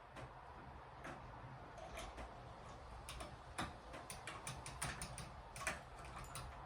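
Ceiling fan running with a low steady hum and irregular light ticks and clicks.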